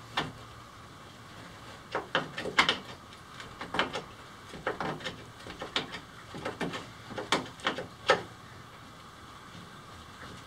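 Irregular sharp metal clicks and clanks from hand work with a tool on the pedal boat's stainless-steel paddle-wheel bearing holder. They come in a scattered run, mostly from about two to eight seconds in, and the loudest strikes fall around two and a half and eight seconds in.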